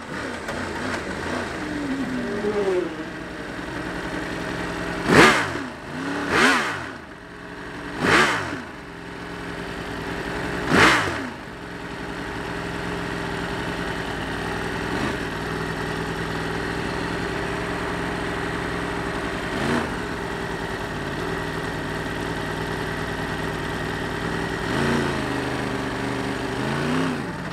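Onboard sound of a Yamaha superbike's engine running, with four other motorcycles passing close by at speed in quick succession in the first half, each rising then falling in pitch as it goes by. After that the bike's engine runs on steadily with small changes in revs.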